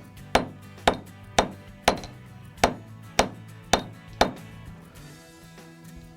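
Fretz planishing hammer striking a twisted sterling silver wire link to flatten it: eight sharp metal blows at about two a second, stopping a little past four seconds in.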